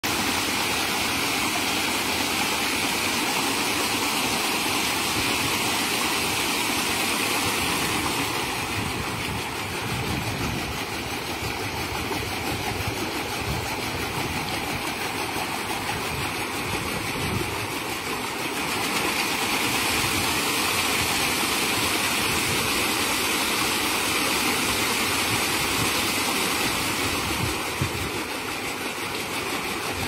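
Solar-powered paddlewheel fish-pond aerator running, its paddles churning and splashing the water with a steady motor-like drone. The splashing eases off about eight seconds in, grows again a little past halfway, and eases once more near the end.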